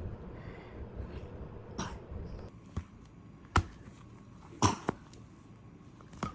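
A sick toddler coughing in short single coughs, about six of them roughly a second apart, with two close together just after the middle. The uploader links the rhythmic cough to pneumonia.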